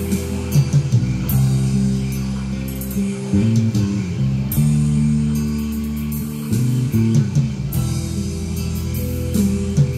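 Recorded music playing back from a CD on a Sony MXD-D1 deck: an instrumental passage of plucked guitar over a steady bass line.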